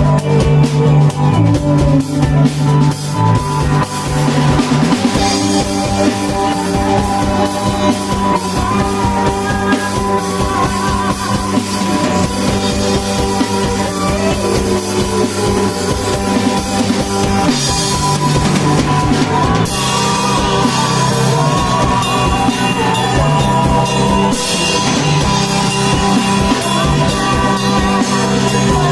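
Live rock band playing: a drum kit keeping a dense, steady beat under bass and sustained electric guitar chords, with cymbal washes rising twice in the later part.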